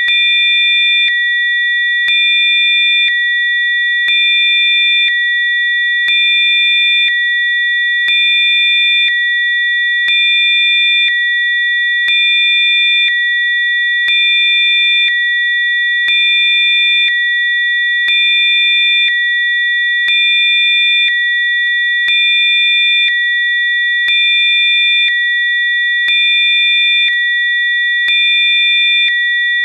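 Several steady electronic sine tones sounding together, the strongest of them high-pitched: generated Rife frequency tones. The level steps slightly up and down about once a second.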